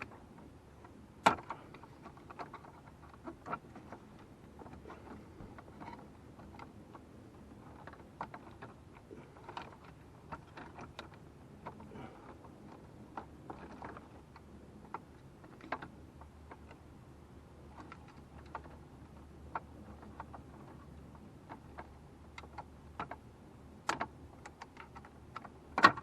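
Irregular small clicks and taps of a hand wrench and plastic HVAC parts being worked under a dashboard, with a sharp louder click about a second in and again near the end.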